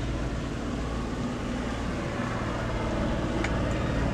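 Yamaha 115 outboard motor idling with a steady low hum.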